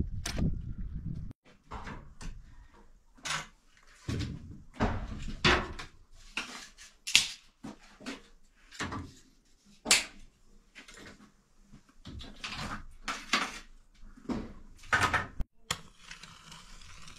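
Split firewood knocked onto a woodpile, then dry sticks clattering and scraping as they are laid by hand into a clay oven's firebox, in irregular knocks and rustles. Near the end there is a sharp click followed by a steady hiss.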